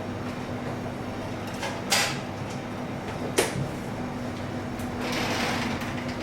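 Restaurant kitchen noise over a steady low hum: a brief clatter about two seconds in, a sharp knock about a second later, and a short rush of hissing noise near the end.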